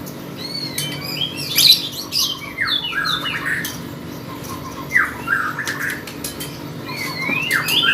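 Lovebird in full song, chattering in quick squeaky chirps and short rising and falling notes, in two busy spells.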